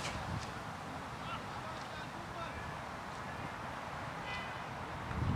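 Wind rumbling on the microphone, with faint scattered bird calls and one short harsh call about four seconds in.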